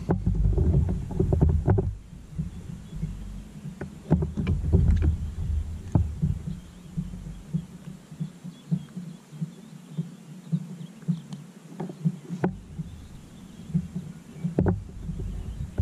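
Small waves slapping against a kayak's hull in a quick, irregular series of low knocks, with wind rumbling on the microphone at times.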